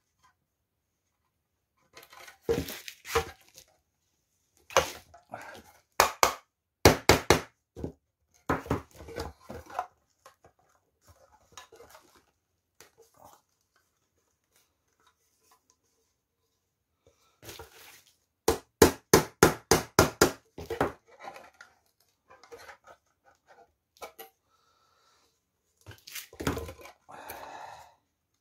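Sharp metal knocks and clinks from working on an old sheet-metal oil can, in bursts, with a quick run of about eight taps near two-thirds of the way through. Some scraping and rubbing near the end.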